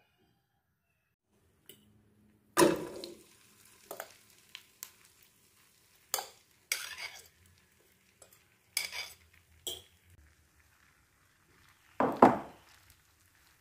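A metal fork stirring and spreading grated potato and zucchini bound with egg, in about eight short scraping strokes with pauses between. The loudest strokes come a little over two seconds in and near the end, when the fork spreads the mixture in a non-stick frying pan with oil sizzling around it.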